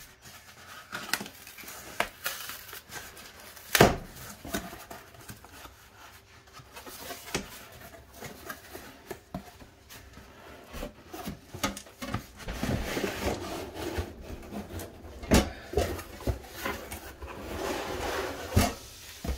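Cardboard box being opened and handled, with rustling and a few sharp knocks, the loudest about four seconds in, as a steel breaker panel (load center) and its cover are lifted out and set down.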